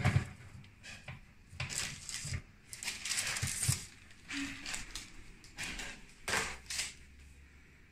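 Metal baking tray being slid out along the oven rack: a sharp knock, a few clanks, and a scraping stretch partway through, then more knocks near the end as the tray is handled onto the counter.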